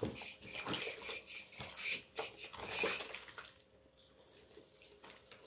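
Water sloshing and splashing in a plastic basin as rubber-gloved hands scrub a wet cat, in irregular bursts that die down about three and a half seconds in.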